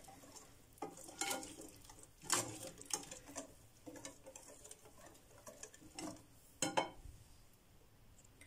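Thick ground-sesame bread dough being stirred in a bowl with a utensil: soft, irregular scrapes and taps against the bowl, the firmest about two and a half and six and a half seconds in.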